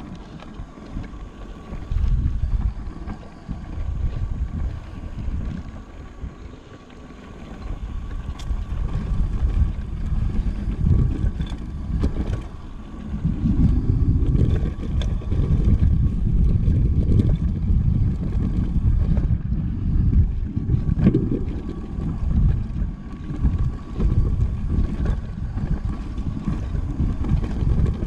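Wind buffeting the microphone of a handlebar-mounted action camera on an electric mountain bike descending a dusty dirt trail, with a fluctuating low rumble of the tyres and frame over rough ground and occasional clicks and knocks. It grows louder from about halfway through.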